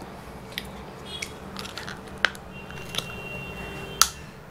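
Cooked mud crab claw shell cracking as it is bitten and crunched between the teeth: a handful of sharp cracks, the loudest about four seconds in.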